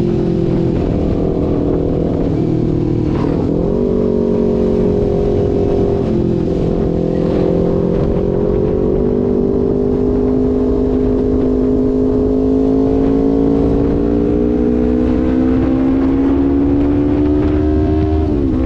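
Kawasaki Ninja 250 parallel-twin engine running through an R9 GP SS aftermarket exhaust. Its steady note climbs slowly in pitch, dips briefly about three seconds in, and drops sharply near the end.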